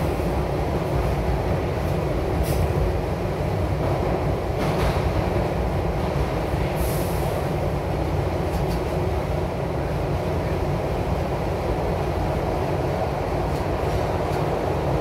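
SEPTA Broad Street Line express subway train running through the tunnel, heard from inside the front car: a steady low rumble of wheels and motors. A few sharp clicks come as the wheels pass over rail joints, and there is a brief high hiss about seven seconds in.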